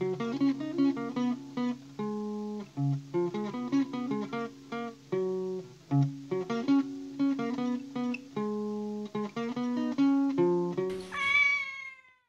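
Background music: a light plucked-string tune of short, evenly paced notes. It ends about eleven seconds in with a single cat meow that falls in pitch.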